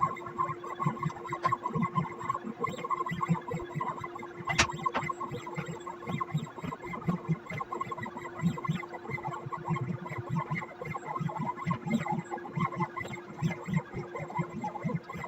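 CNC pen plotter's stepper motors running as it draws: a steady whine with quick, uneven low buzzing pulses as the axes make short moves, and one sharp click about four and a half seconds in.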